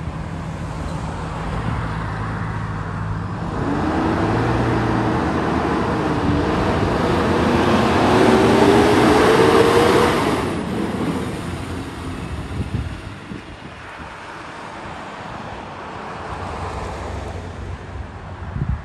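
Blue Bird Vision school bus engine accelerating as the bus pulls away and passes close by: the engine note climbs in pitch and grows loudest about ten seconds in, then fades as the bus drives off.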